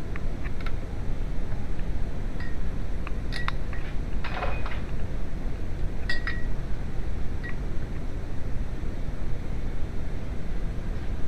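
A steady low rumble with a few scattered light clicks and short metallic clinks.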